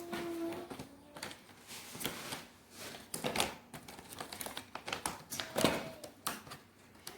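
Handling noise: irregular rustling and light tapping as pieces of a children's book are handled.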